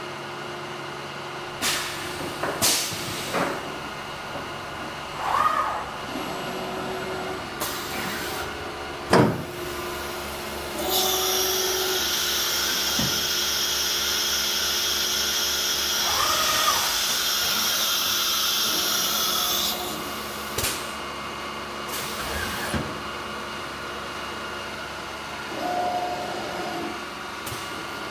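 Tecnoteam Tecnoflex vertical CNC machining center at work, with a steady machine hum throughout. Several clunks and knocks come from the moving spindle head and tool-changer carousel, the loudest about nine seconds in, along with a few short whines of axis moves. A steady high hiss starts about eleven seconds in and cuts off about nine seconds later.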